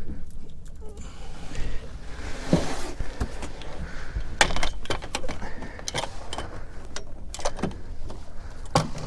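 Knocks, clicks and rattles of a landing net and fishing gear being handled on a small boat's deck.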